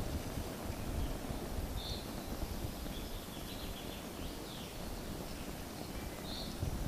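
Wind rumbling steadily on the microphone outdoors, with a few short, high bird chirps about two seconds in, around three seconds in and near the end.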